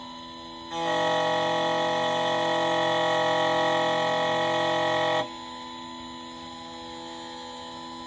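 Xhorse Condor XC-Mini Plus key cutting machine running a calibration cut on a Honda key blank: a steady machine hum, which about a second in jumps to a much louder, steady multi-pitched whine. It holds for about four and a half seconds, then drops suddenly back to the quieter hum.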